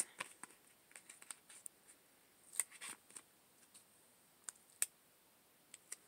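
Faint, scattered ticks and rustles of fingers handling a paper sticker sheet and peeling a small planner sticker off it.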